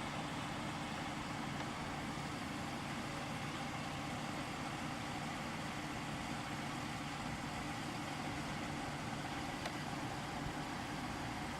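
An engine idling steadily: a constant low hum that holds even throughout.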